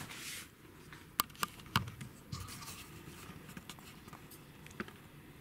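A few light, sharp clicks over faint rustling: three close together a little over a second in, and one more near the end.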